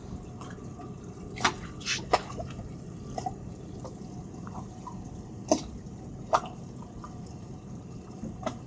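Small waves lapping and slapping against the hulls of two boats tied alongside each other. A few sharp slaps stand out irregularly over a steady low wash.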